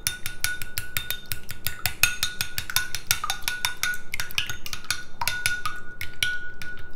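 Metal spoon beating raw eggs in a ceramic bowl, clinking rapidly against the bowl, several strikes a second.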